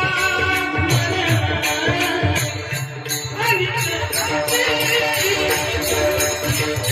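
Warkari bhajan music: a gliding sung melody over small hand cymbals (taal) clashing in a steady rhythm, with low drum beats.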